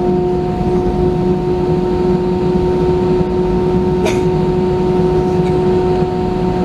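An Airbus A319's CFM56 turbofan engines running during taxi, heard inside the cabin as a steady whine of a few held tones over a low rumble. A brief click about four seconds in.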